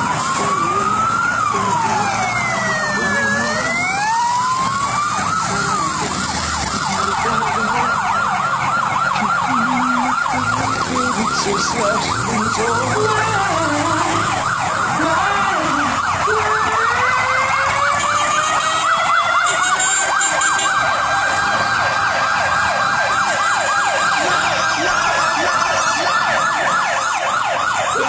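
Several emergency sirens sounding together: one wails slowly up and down, another runs a rapid yelp, and a third climbs slowly and then holds.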